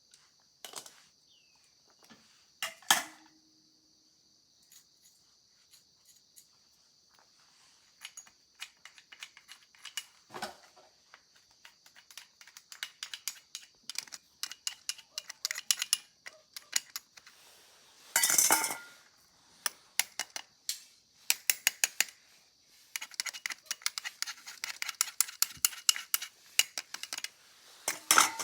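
Metal clinks and rattles of tools and bicycle parts being handled during a bicycle repair, thickening into runs of quick clicks in the second half, over a steady chirring of crickets.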